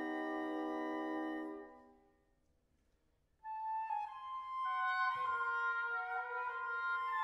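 Contemporary chamber-ensemble music: a sustained chord dies away, about a second of silence follows, then flute and clarinet enter with overlapping held notes that step between pitches.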